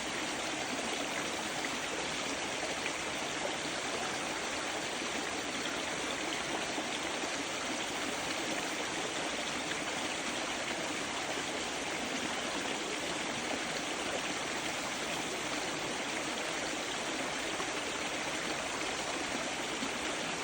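Mountain stream flowing over rocks, a steady, even rush of water with no pauses or changes.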